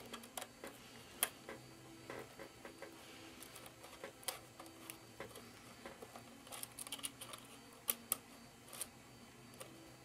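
Faint, irregular clicks and ticks of a Phillips screwdriver turning the screw of an iMac's metal memory-bay cover, with a few sharper clicks standing out.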